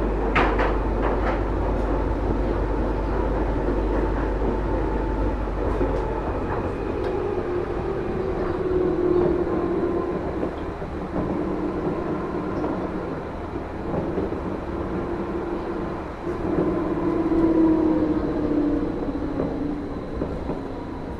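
Rubber-tyred automated Wenhu line metro train running, its motor tones sagging slightly in pitch as it slows toward the next station. A few sharp clicks come in the first second or two, and a low hum stops about six seconds in.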